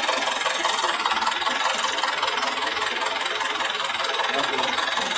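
Drilling rig's engine running steadily, a dense mechanical drone with a fast, even ripple.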